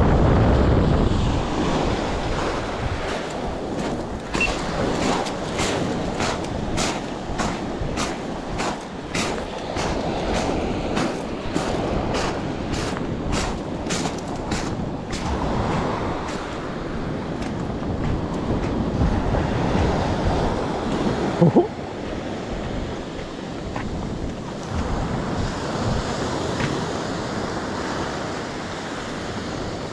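Waves washing on the shore, with wind buffeting the microphone. For about twelve seconds in the first half a string of sharp ticks comes roughly twice a second, and about two-thirds of the way through there is a single short, sharp knock, the loudest sound.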